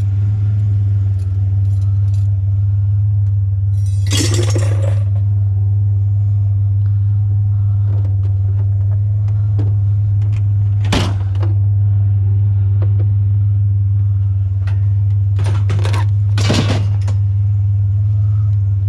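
Truck engine running with a steady low drone, with several short rattling clanks over it: one at about four seconds, one near the middle and two close together near the end.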